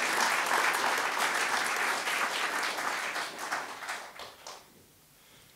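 Audience applauding, the clapping thinning out and stopping about five seconds in.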